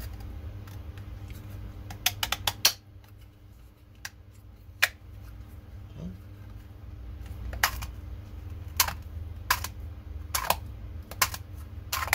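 Sharp plastic clicks and clacks from a 3D-printed iris valve being turned and handled: a quick cluster of clicks about two seconds in, then single clicks roughly once a second toward the end. A low steady hum lies underneath.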